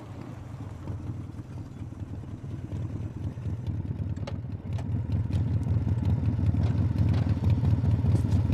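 Small motorcycle engine running steadily and growing louder, as if riding closer.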